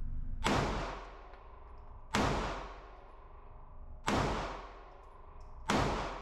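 Four slow, deliberate shots from a Smith & Wesson Shield Plus micro-compact pistol, about one and a half to two seconds apart. Each crack rings on for about a second in an indoor concrete range.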